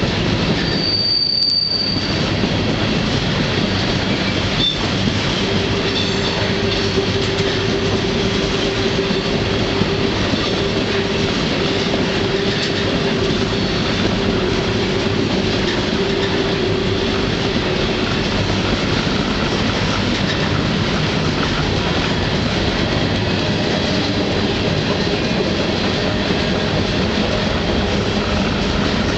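Freight train heard from on board, its steel wheels rattling and rumbling steadily on the rails. A brief high squeal comes about a second in, and a steadier lower-pitched squeal runs from about five seconds in to about eighteen as the train works around a curve.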